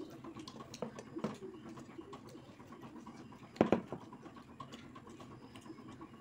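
Quiet hand-eating sounds: fingers working biryani rice on plates, and chewing, with scattered small clicks and one sharp knock about three and a half seconds in.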